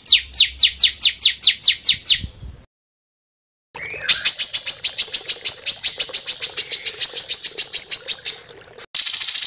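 Small songbirds singing: a fast series of high notes, each sweeping downward, about six a second, then a gap of about a second. A long, rapid, high trill of short notes follows, about eight a second, and near the end it switches abruptly to a faster, buzzier trill.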